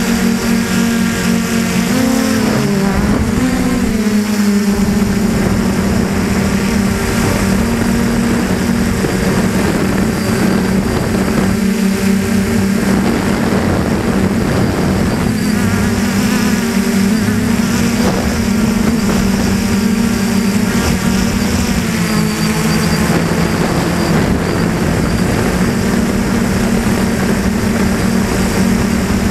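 DJI Flamewheel 450 quadcopter's electric motors and propellers running with a steady buzzing hum, heard close up from on the airframe. The pitch shifts briefly a few seconds in and again about three quarters of the way through as the motors change speed.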